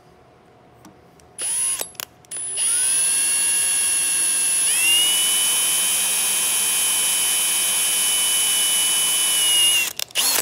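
Drill press motor switched on, cut off briefly, then started again and running with a steady high whine, its pitch stepping up about five seconds in, before it is switched off near the end. It is drilling the last barrel-pin hole through the wooden rifle stock at the muzzle end.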